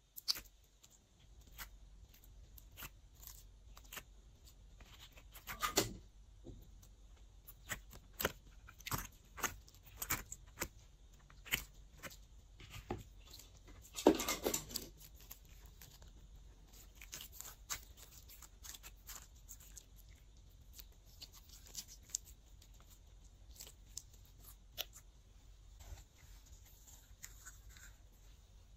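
Hands working glossy slime: soft, irregular sticky clicks and crackles as it is pressed, peeled and pulled, with a louder, second-long squelch about halfway through.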